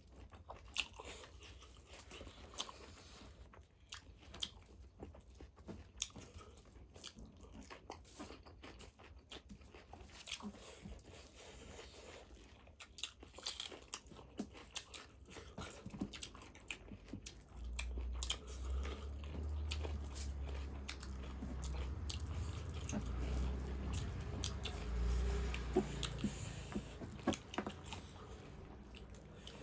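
Close-up chewing and biting of pork feet: wet smacking and crunching of skin and cartilage, with many small sharp clicks. A low hum joins in from a little past halfway until near the end.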